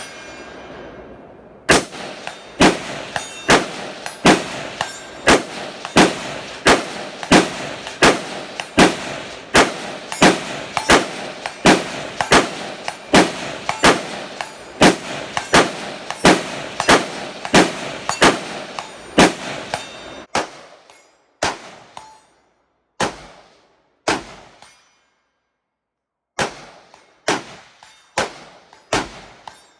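Semi-automatic rifle fire, about two shots a second for some twenty seconds, then slower single shots roughly a second apart, with a short pause near the end.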